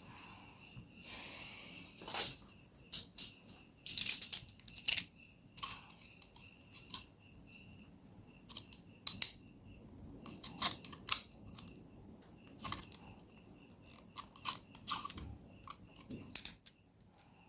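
Irregular sharp plastic clicks and snaps, with a short scrape about a second in, from a Samsung Galaxy A03s phone's housing being taken apart with hand tools.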